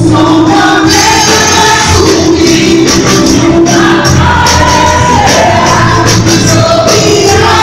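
Loud live gospel worship music: several women singing a praise song together into microphones over an amplified band, with long held, sliding sung notes throughout.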